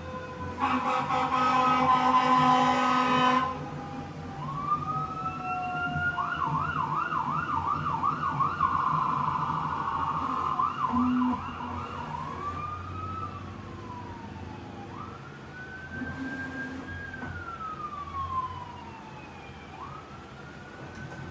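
Emergency vehicle siren: a loud steady blaring tone for about three seconds at the start, then a wail rising and falling, a fast warbling yelp in the middle, and slower wails toward the end.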